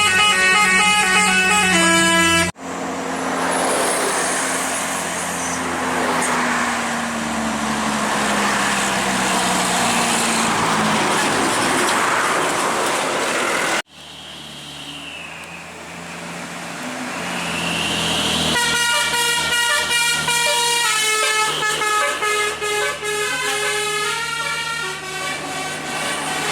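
Multi-note vehicle horns playing short stepped melodies, the kind fitted to Indonesian buses and trucks. They sound at the start and again from about two-thirds of the way in. Between them, after an abrupt cut, a heavy vehicle passes with its engine running and its pitch slowly falling.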